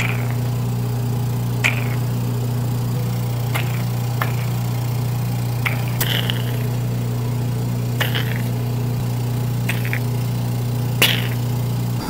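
DiamondGlow facial machine's vacuum pump running with a steady hum. The suction wand gives about eight short, high squeaks at irregular intervals as it works over the skin.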